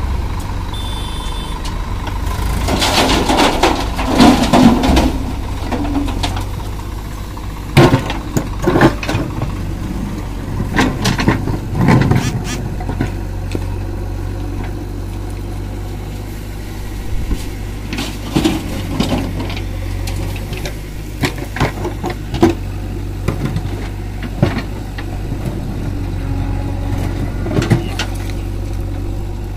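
Diesel engines of a backhoe loader and a farm tractor running steadily, with repeated clattering and thudding of rocks as the backhoe bucket scrapes up stones and dumps them into the tractor's trolley. The impacts come in clusters: a few seconds in, around the middle, and again in the last third.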